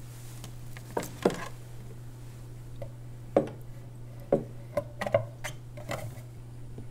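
Vinyl record being handled on a console stereo's turntable: a string of short knocks and clicks as the LP is set down on the platter and the tonearm is moved over it, over a steady low hum from the console.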